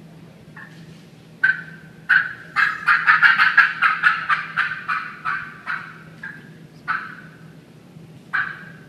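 Hen turkey fly-down cackle on a Talkin' The Talk MC122 Satisfaction turkey call. A couple of spaced yelps build into a fast, irregular run of cackling notes, then it slows back to a few single yelps near the end.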